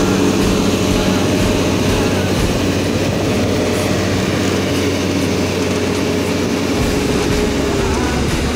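JCB telescopic handler's diesel engine running steadily under load as it pushes chopped green rye silage across the clamp, its note shifting slightly near the end.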